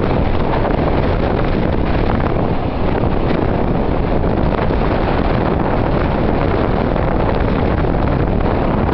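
Strong storm wind buffeting the microphone: a loud, steady rush of noise with no distinct crash or impact.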